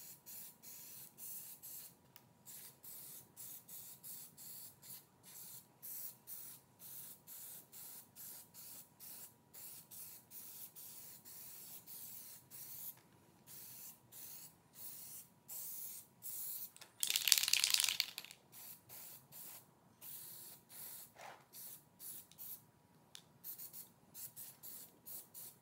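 Aerosol can of blue Plasti Dip rubber coating spraying in many short hissing bursts, about two a second, with one longer, louder spray about two-thirds of the way through; the footage plays at double speed.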